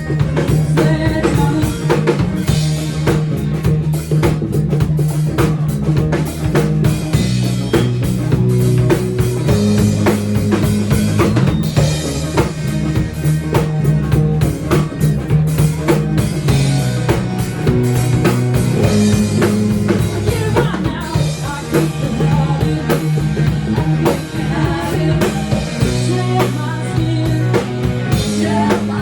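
Band music with a drum kit keeping a steady beat and bass notes changing every second or two.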